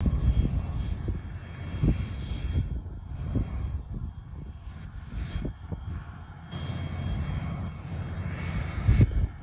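Cessna Citation CJ4's twin turbofan engines running at low power as the jet taxis, a thin steady whine under an uneven low rumble of wind buffeting the microphone.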